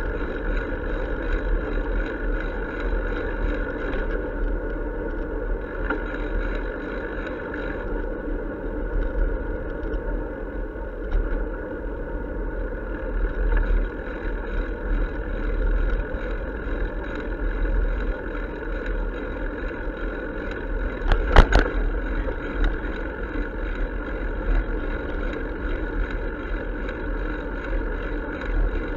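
Steady rolling and wind noise of a bicycle riding along a pavement, picked up by an action camera mounted on the bike. A brief sharp clatter comes about two-thirds of the way through.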